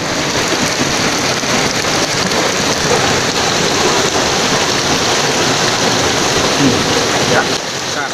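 Fast-flowing stream water rushing over rocks: a loud, steady hiss of white water.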